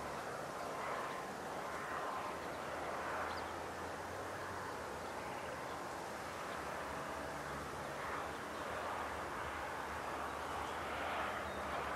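Distant train on the line: a steady low hum and rumble with soft swells, heard across open country.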